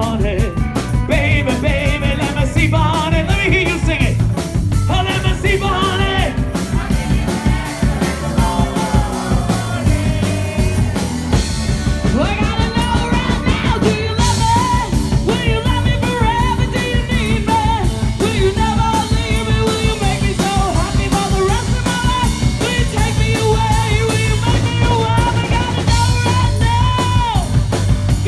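Live rock band playing: drum kit keeping a steady beat, electric bass guitar, and a singer on an amplified microphone singing throughout.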